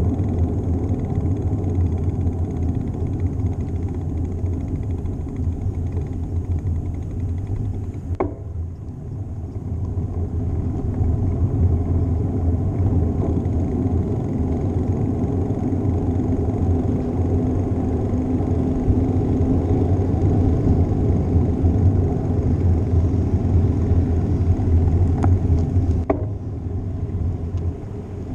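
Wind rumbling over a bicycle-mounted GoPro microphone while riding, with tyre and road noise. It is a steady, low, noisy rumble that eases briefly about eight seconds in and again near the end.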